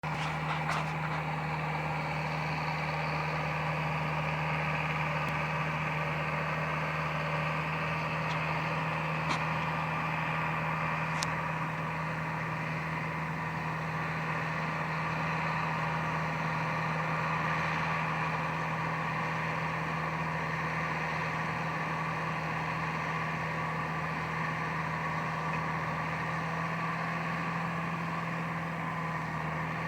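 Tractor and baler running steadily, the engine holding an even hum at constant speed, with a few faint sharp clicks in the first half.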